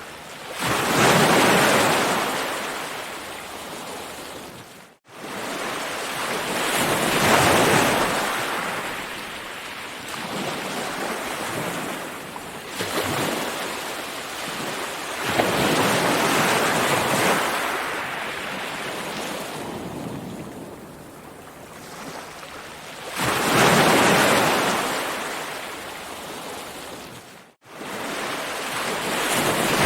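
Ocean waves rolling in and breaking, each wave swelling into a loud hissing wash and then falling back, roughly every five to eight seconds. The sound cuts out for an instant twice, about five seconds in and near the end.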